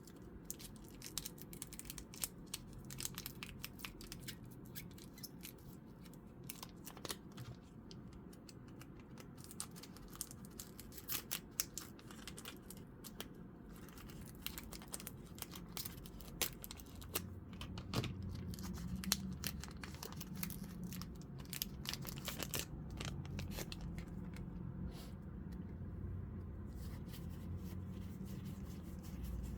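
Foil booster pack wrapper being torn open and crinkled, a dense run of small crackles and clicks. A low steady hum joins a little past halfway.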